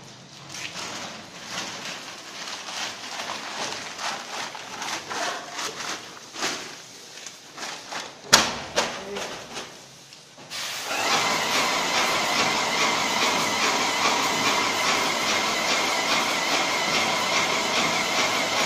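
Graco airless paint sprayer spraying: from about ten seconds in, a loud steady hiss with a held whine as the gun sprays a fan of coating under pump pressure. Before that, irregular knocks and handling noise, with a sharp click about eight seconds in.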